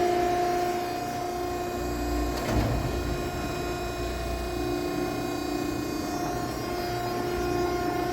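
BACE V63HD vertical baler's 15 HP hydraulic power unit running with a steady whine. The pitch shifts slightly as the load changes, and there is a single clunk about two and a half seconds in.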